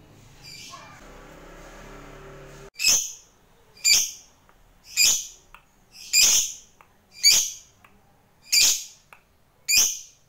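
Lovebird giving a series of seven loud, shrill calls about a second apart, starting a little under three seconds in.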